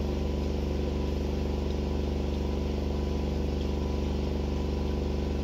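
A steady machine hum at one even, unchanging pitch, low and buzzing.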